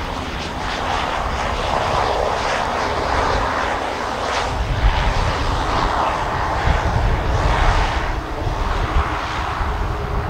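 US Navy UC-12F (Beechcraft King Air) twin turboprop engines running steadily as the aircraft rolls along the runway: a continuous rush of turbine and propeller noise that swells and eases a little.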